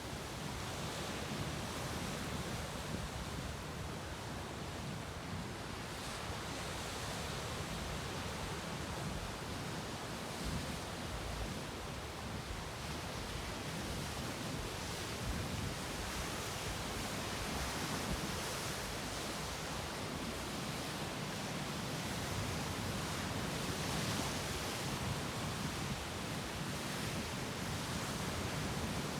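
Sea waves breaking and washing against rocks: a steady rush of surf that swells and eases every few seconds.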